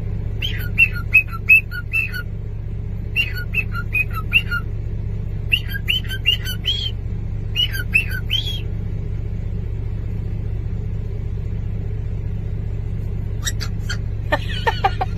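A bird chirping in quick runs of four or five short, falling notes, four runs in the first nine seconds, over a steady low rumble.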